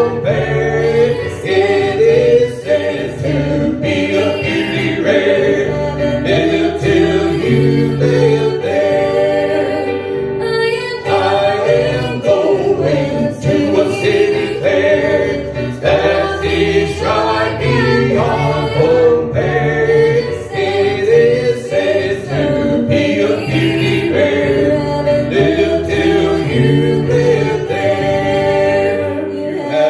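A cappella vocal group singing in close harmony, with a sustained bass line under the melody.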